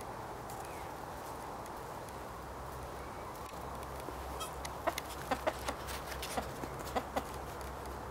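Chickens clucking: a quick run of short clucks from a little past halfway, over a steady low background noise.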